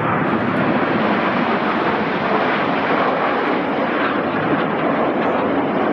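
Steady jet noise from a formation of Red Arrows BAE Hawk T1 jets flying past, their Adour turbofans heard as an even rushing roar.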